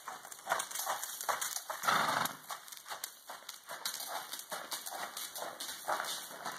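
Hoofbeats of a ridden horse moving at a steady gait over the dirt footing of an indoor arena, in an even rhythm, with one louder, longer sound about two seconds in.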